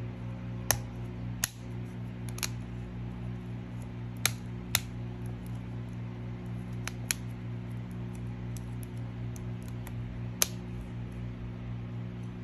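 Plastic clips of a Samsung Galaxy A70's cover snapping into the phone's frame as it is pressed shut along the edges: about eight sharp clicks at irregular intervals, over a steady low hum.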